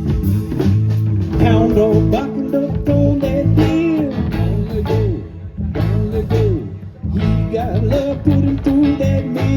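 Live band playing an instrumental passage of a blues-style song: a guitar line with bent, sliding notes over a pulsing bass and a steady drum beat.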